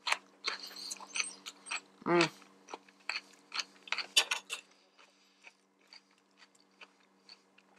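Close-up eating sounds: chewing and crunching of salad with wet mouth clicks and a fork clicking against the plate, busiest in the first half and thinning to scattered ticks later. A short closed-mouth "mm" sounds about two seconds in.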